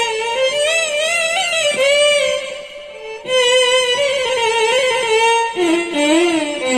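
Violin played through a Zoom G1Xon multi-effects pedal: a melody with wide vibrato in two phrases, with a brief dip about three seconds in, ending on a lower held note.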